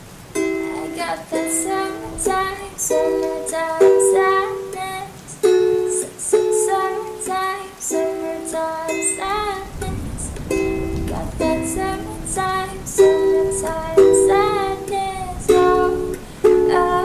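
Acoustic instrumental passage of plucked strings picking notes and chords, with no singing. A low rumble comes in underneath about halfway through.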